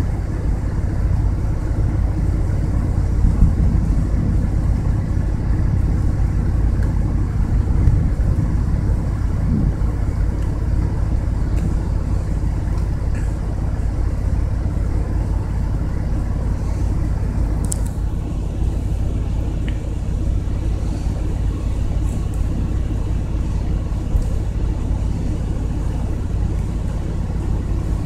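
Steady low rumble of wind buffeting the microphone as a thunderstorm approaches, swelling slightly now and then.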